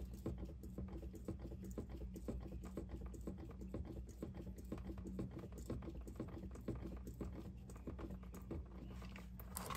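Quart-size hand pump being worked steadily, pumping automatic transmission fluid up a tube into a transmission's fill hole: a continuous run of short, quick clicking, squelching strokes.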